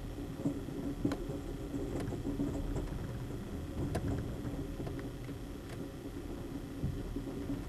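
Ride noise inside a moving Amtrak Coast Starlight passenger car: a steady rumble and hum of wheels on rail, with a few sharp clicks about a second, two seconds, four seconds and six seconds in.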